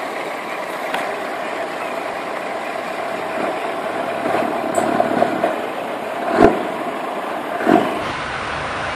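Scania T580 V8 truck engine running as the truck drives along the road, steady, with a few short louder bursts in the second half. The sound changes near the end.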